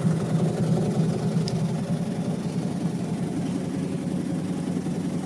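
Sinmag bread slicer running, its electric motor driving the blades with a steady, even hum.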